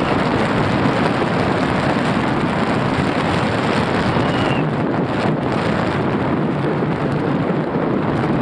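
Steady rush of wind buffeting the microphone, mixed with the rolling rumble of an engineless soapbox cart's wheels on asphalt as it coasts downhill at speed.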